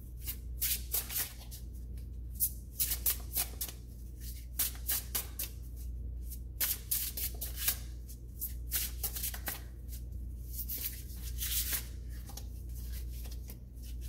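A deck of tarot cards being shuffled by hand: quick, irregular clusters of card slaps and flicks.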